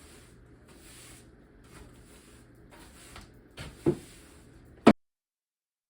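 Broom sweeping a hard floor in repeated short brushing strokes, with a couple of sharp knocks near the end; the sound cuts off abruptly about five seconds in.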